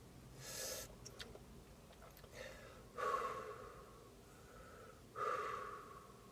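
A man breathing heavily through his mouth against the burn of a super-hot chilli on his tongue: four separate breaths, the loudest starting sharply about three seconds in.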